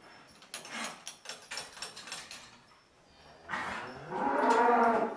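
A cow moos once near the end, one call of about a second and a half that swells and then dies away, the loudest sound here. Before it, scattered light knocks and clatters.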